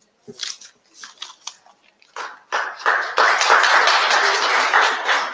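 Audience applauding: a few scattered claps at first, building to steady applause about two and a half seconds in.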